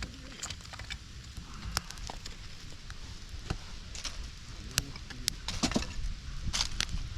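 Wood fire crackling, with irregular sharp pops and snaps, over a low rumble of wind on the microphone.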